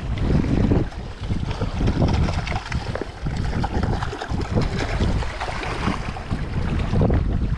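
Wind buffeting the microphone in irregular gusts, over small waves washing against shoreline rocks.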